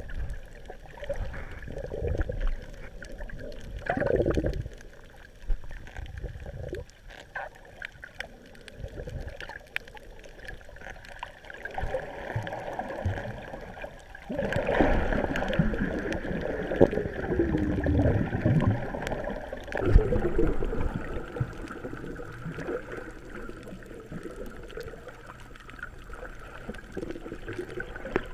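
Muffled underwater water movement, gurgling and sloshing, recorded through a waterproof camera housing as a snorkeler swims. It comes in uneven low swells and grows busier about halfway through.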